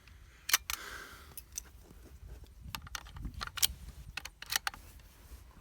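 Scattered sharp metallic clicks with some rustling and a short hiss, the small sounds of a rifle and gear being handled between shots; no shot is fired.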